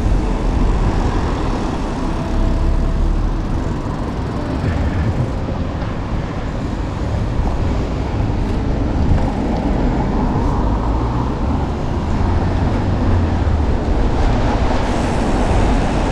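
Steady rush of wind and road noise while riding a gravel bike along a town road, heavy in the low rumble, with road traffic.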